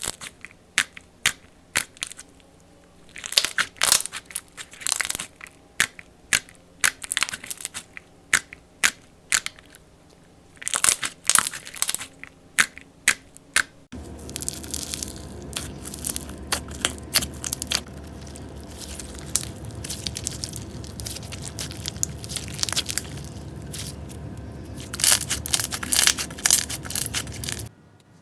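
Slime being squeezed and worked by hand, giving clusters of crisp crackles and pops. About halfway through it changes to another clip, where a steady low hum runs under the crackling.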